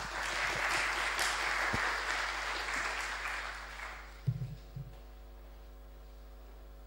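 Audience applause for about four seconds, dying away, followed by two short low thumps.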